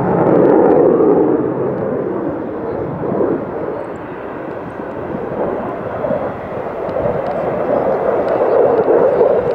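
Airplane flying over with a steady rushing engine noise that grows louder about half a second in and again near the end.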